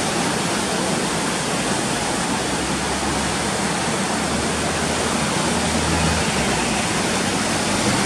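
Steady rushing of the Sapta Koshi river in flood, its muddy water churning through and below the barrage at danger level.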